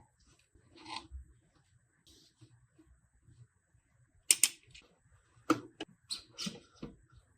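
Packaging of a gaming mouse being handled during unboxing: short rustles of packaging and sharp clicks and taps, coming in scattered bursts, the loudest a little past the middle and a quick run of them near the end.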